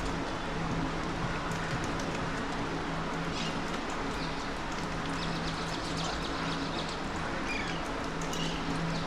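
Short, faint bird calls and chirps over a steady hiss of background noise with a low hum; the calls start about a third of the way in.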